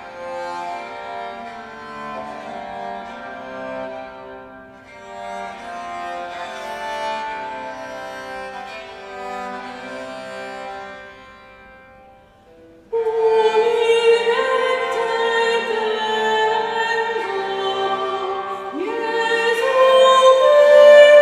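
Viola d'arco playing a slow melody of held, bowed notes. About two-thirds of the way through it stops, and a louder passage begins: a portative organ holding steady chords, with a woman's singing voice entering near the end.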